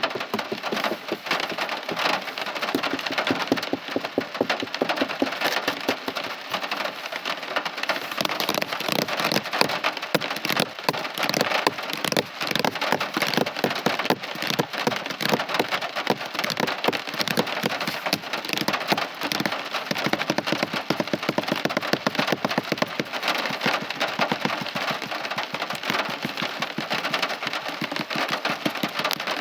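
Steady heavy rain, a dense crackling patter of drops striking a surface.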